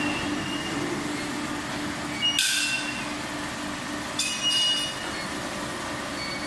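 Machine-shop noise: large metal-cutting machine tools running with a steady hum, broken by a sharp high-pitched metallic squeal about two and a half seconds in and a second, whistling squeal around four seconds in.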